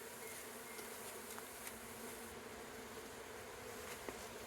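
A mass of Italian honey bees buzzing steadily, stirred up after being shaken out of their package into the hive, with a couple of faint taps.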